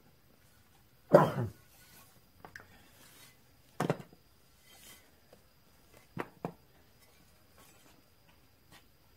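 A few short knocks and scrapes of steel muffler parts being handled as the perforated inner tube of a shop-built glasspack muffler is slid out of its pipe and set down on the workbench. The loudest is about a second in, with a smaller one near four seconds and a close pair about six seconds in.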